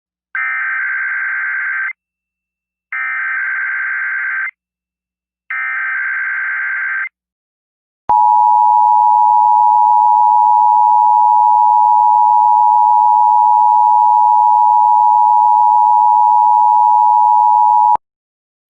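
Emergency Alert System tones: three short bursts of SAME header data, each about a second and a half long and a second apart, then the steady two-tone attention signal held for about ten seconds, which cuts off suddenly.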